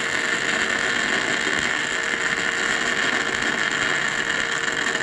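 Miller Millermatic 215 MIG welder running on 220 volts, its arc crackling continuously as a weld is burned into a steel plate.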